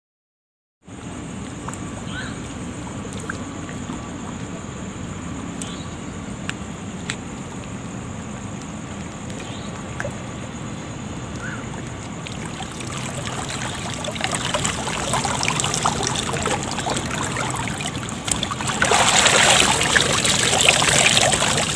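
Shallow seawater sloshing and splashing as a man wades and hauls a gillnet out of the water. It starts after a moment of silence and grows louder, with heavier splashing in the last few seconds.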